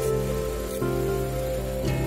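Background music of sustained notes that change every second or so, over an even hiss.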